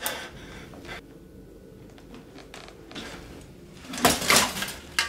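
Quiet room with a few small clicks; about four seconds in, a brief scraping rustle as a thin pen is dipped into a small clay ink bowl, followed by a sharp tick or two.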